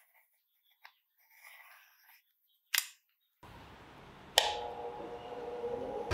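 Bench grinder switched on with a sharp click, its motor then spinning up with a steadily rising hum. Before that, faint clicks and scraping of a steel vernier caliper worked against a knife blade, with one sharper click.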